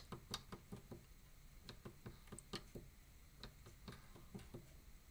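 Faint, irregular clicking of small tactile push buttons on a homemade synth circuit board, several presses a second, as parameter values are keyed in.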